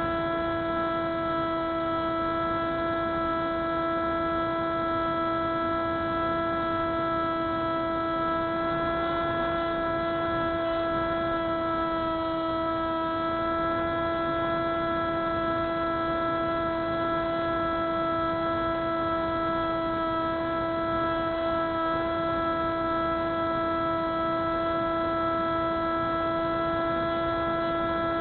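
Spyhawk FPV model plane's electric motor and propeller running at a steady throttle: one constant droning pitch over a rush of noise, barely wavering.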